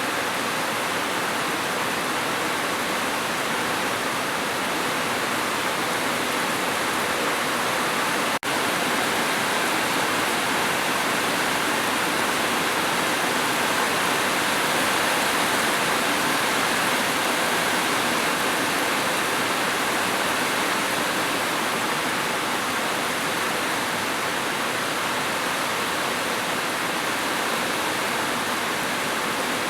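Steady rain falling as an even hiss, with a split-second dropout about eight seconds in.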